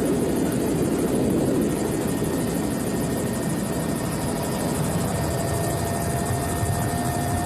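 Steady, loud mechanical whirring from a motor, with a thin whine that rises slightly near the end.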